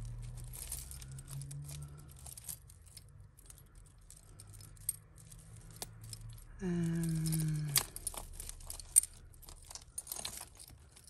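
Tangled costume jewellery, metal chains, pendants and beads, clinking and ticking as fingers pick at a knot, with one sharp louder click about nine seconds in. A brief falling hum from a person about seven seconds in.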